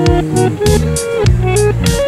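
Background music with a steady beat: guitar over held bass notes.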